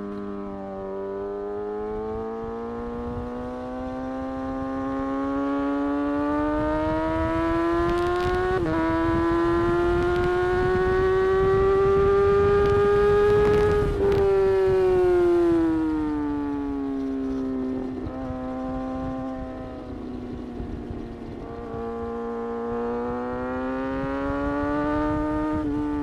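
Kawasaki ZX-6R 636 inline-four engine under way, its pitch climbing steadily as the bike accelerates, with a short dip about a third of the way in as it shifts up. About halfway through the revs fall away as the throttle is rolled off, then they climb again near the end. Wind rush underneath is strongest at the highest speed.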